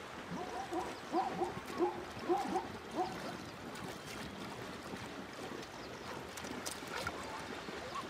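Water splashing and sloshing as ostriches bathe and flap in a shallow pan. In the first three seconds it is joined by a run of short, repeated animal calls, about two or three a second.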